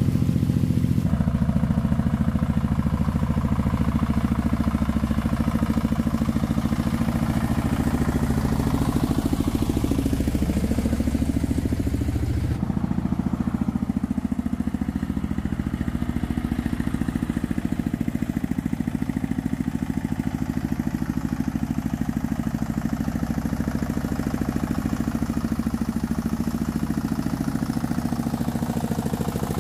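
Truck engine running steadily; its tone shifts abruptly twice, about a second in and again around twelve seconds in.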